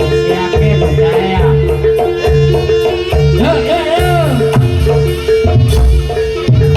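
Loud traditional Javanese barongan accompaniment music: hand drums beating a steady pattern under a held tone, with a voice sliding up and down in pitch about halfway through.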